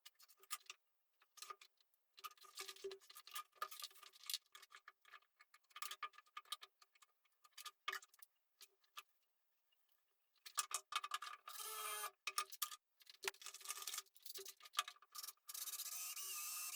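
Rapid irregular clicking and tapping of tools and parts being handled at a workbench, many short ticks with a light metallic ring. Twice in the second half it gives way to a denser, steadier rasping noise for a second or two.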